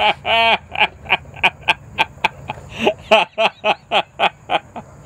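A man laughing hard: a long run of quick "ha" pulses, about four or five a second, with one drawn-out pulse near the start and a short break midway, stopping just before the end.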